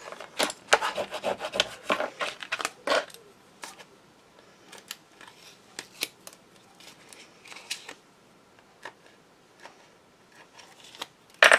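Card stock being folded and creased by hand: a run of rubbing, scraping strokes in the first three seconds, then scattered light taps and rustles, and one louder scrape near the end.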